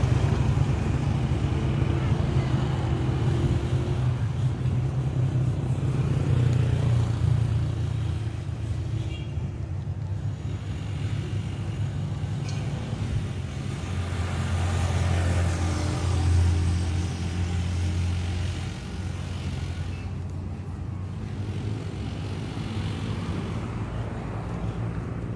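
Road traffic: motor vehicle engines on the road alongside, a steady low rumble that swells as one vehicle passes about fourteen to seventeen seconds in.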